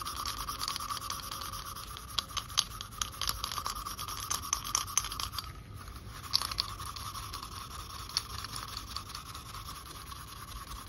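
Extra-fine 0000 steel wool wet with WD-40 scrubbed hard over a rusty metal Pete Engelhart bell to clean it: continuous scratchy rubbing full of small crackles, easing off briefly about halfway.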